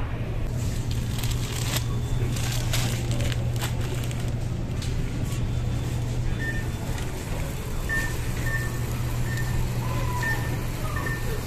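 Loaded wire shopping cart rolling over a smooth store floor: a steady low rumble, with clicks and rattles of the basket in the first few seconds. Short high electronic beeps sound several times, at uneven gaps, in the second half.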